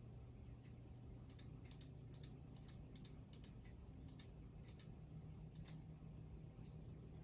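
Computer mouse clicking, about ten quick pairs of clicks over four seconds, faint, over a low steady hum.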